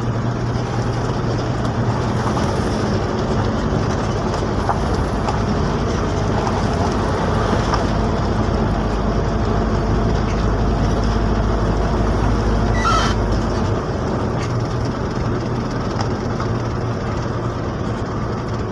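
Vehicle engine and tyre noise heard from inside the cab while driving along a dirt road: a steady hum under a noisy rumble. The deep rumble eases about thirteen seconds in, just after a brief squeak.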